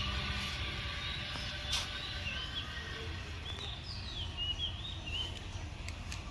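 Songbird chirping a string of short notes that swoop up and down, from about two seconds in until about five seconds in, over a steady low rumble of background noise. A few sharp clicks near the end.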